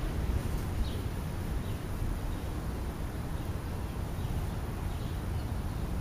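Steady low outdoor rumble with a few faint, short bird chirps, about a second in and again a couple of times later.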